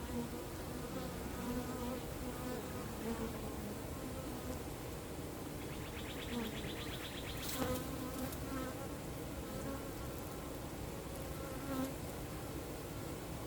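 A swarm of honeybees buzzing steadily, with single bees droning louder as they pass close every few seconds. There is a brief sharp click a little past halfway.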